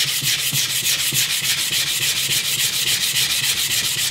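Sandpaper on a semi-rigid rubber holder scrubbed rapidly back and forth over a rusty steel knife blade, in quick even strokes, grinding off rust.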